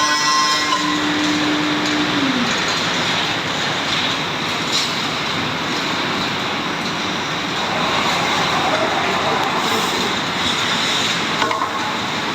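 Biesse Rover CNC machining centre running: a steady spindle whine that drops in pitch and dies away about two seconds in, over a constant rushing noise.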